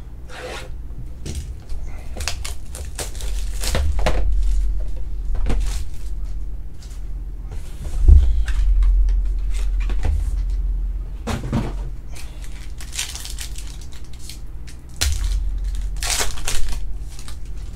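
Cellophane shrink wrap crinkling and tearing as it is pulled off a trading-card hobby box, with several dull bumps of the cardboard box being handled. Near the end a foil card pack crinkles in the hands.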